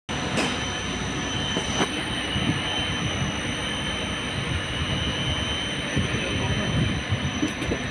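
Elevator machinery running in the machine room: a steady mechanical rumble with a thin high whine over it and a couple of faint clicks.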